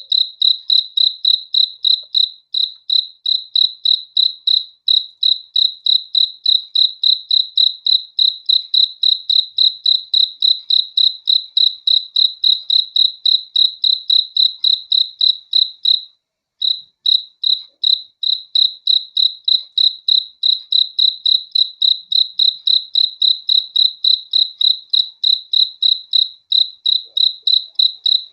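Cricket chirping in a steady, even rhythm of about three and a half high-pitched chirps a second, all at one pitch, with a brief pause about halfway through.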